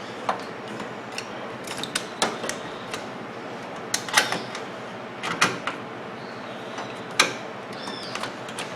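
Irregular metal clicks and knocks from fitting the clamp that holds a new high-voltage capacitor inside a microwave oven, the sharpest knock about seven seconds in.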